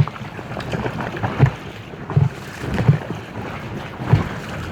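Water slapping against an Aqua Marina inflatable kayak's hull in irregular low thuds about once a second, with wind on the microphone.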